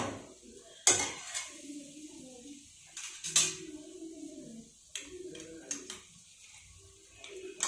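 A metal spoon clinking and scraping against a steel bowl and a non-stick kadai as ground coconut is tipped into the pan: a few separate sharp clinks, the loudest about a second in and again midway.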